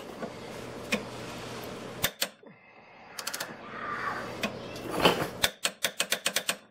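A torque wrench ratcheting on a subframe collar bolt as it is tightened to torque. It gives a few single clicks, then quick runs of clicks about three seconds in and again near the end.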